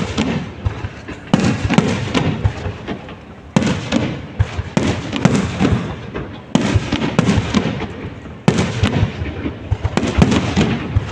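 Aerial fireworks display: a run of shells bursting, each loud bang followed by crackling that fades, with fresh volleys about every two to three seconds.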